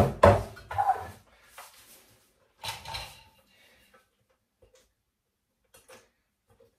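Stainless-steel Thermomix TM6 mixing bowl being lifted out of its base and handled. A loud clatter and scrape comes in the first second, another comes about three seconds in, and then there are only a few faint clicks.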